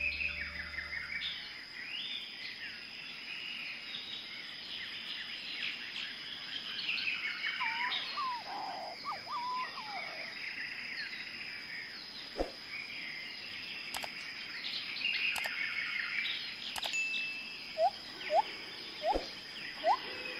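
Forest ambience of many birds chirping and calling over a steady high whine. Near the end one bird gives a series of short rising whistles, several per second.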